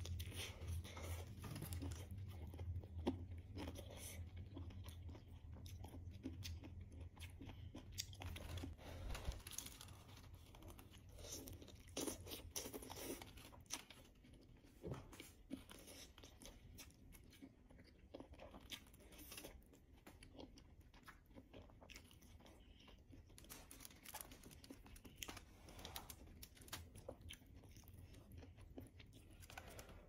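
A person chewing and biting baked whole chicken, with many small clicks of mouth and food sounds throughout. A low hum underneath stops about nine seconds in.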